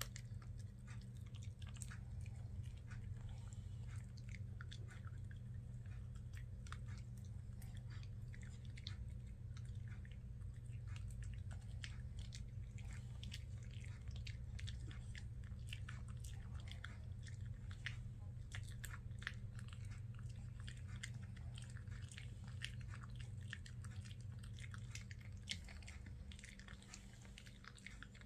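Small black curly-coated dog gnawing a dog chew: irregular wet clicks and crunches of its jaws and teeth, several a second, over a steady low hum.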